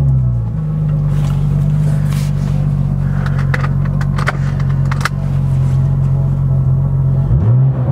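Porsche 993 Turbo's air-cooled twin-turbo flat-six with a Brooke race exhaust, idling steadily, then blipped once near the end with a quick rise and fall in revs.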